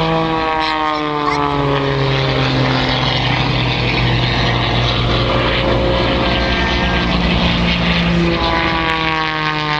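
Propeller engines of aerobatic planes droning, the engine note sliding down in pitch over the first few seconds and again from about eight seconds in.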